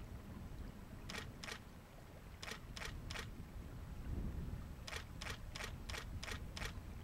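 Camera shutter firing in quick bursts: two clicks, then three, then a run of six, about three a second. Under the clicks there is a low rumble of wind on the microphone.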